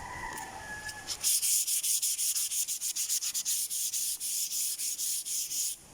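240-grit sandpaper rubbed rapidly back and forth over a sealer-coated surface, about five strokes a second: sanding down the sanding sealer before the top coat.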